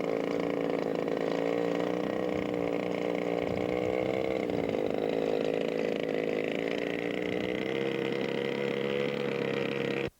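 Model airplane engine running steadily, its pitch sagging slightly about halfway through and then recovering. The sound cuts off abruptly at the very end.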